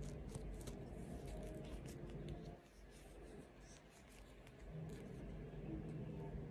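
Tarot cards being handled and drawn from the deck: soft papery rustles and light flicks, over a low steady room hum.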